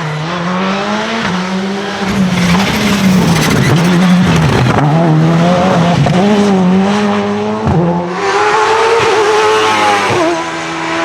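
Hillclimb racing car's engine at high revs, its pitch rising and falling repeatedly as the driver works the throttle and gears. It cuts out briefly about eight seconds in, comes back higher, then drops sharply near the end.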